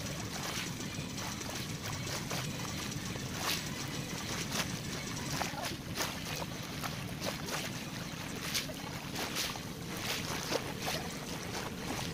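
Small waves lapping in shallow water over a pebbly, shelly shore, with irregular small clicks and splashes over a steady rush of wind on the microphone.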